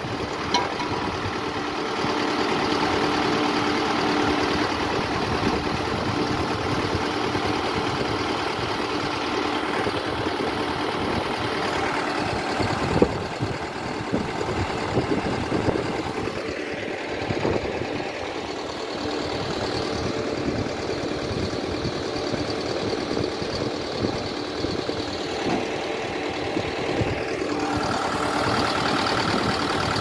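Diesel engine of a trailer concrete pump running steadily, with a sharp knock about halfway through.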